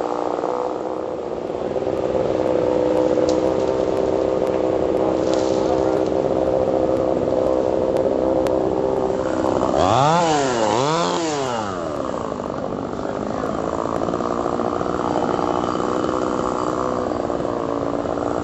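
Chainsaw engine running steadily, revved up and back down twice about ten seconds in.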